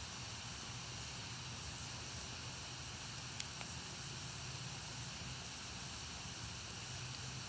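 Fire burning with a steady hiss and a few sharp crackles, two of them close together about halfway through.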